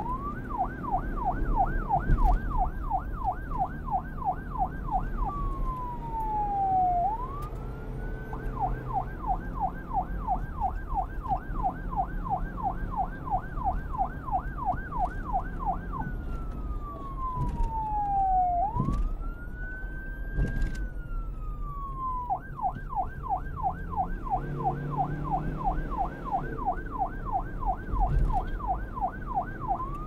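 Police car siren alternating between a fast yelp, about four sweeps a second, and a slower wail that glides down and back up. Its first wail comes around 5 seconds in and a longer one around 16 to 22 seconds in. A low rumble runs beneath it.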